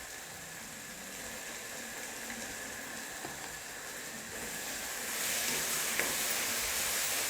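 Tomato and spice masala frying in oil in a kadai, a steady sizzling hiss that grows louder about five seconds in, with a faint click near the end.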